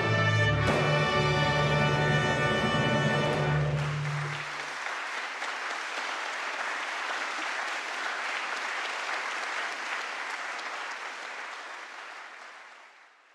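A chamber orchestra with trumpets sustains a chord that stops about four seconds in, followed by an audience applauding, fading out near the end.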